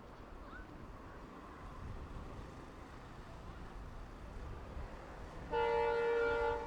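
EMD WDP-4D diesel locomotive approaching with a low rumble, then near the end one shrill air-horn blast of about a second, a chord of several steady tones that cuts off sharply.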